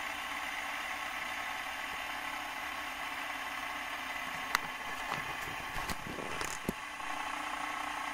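Fidget spinner spinning on a tabletop, its bearing giving a steady whir. A few small clicks and knocks come between about four and a half and seven seconds in.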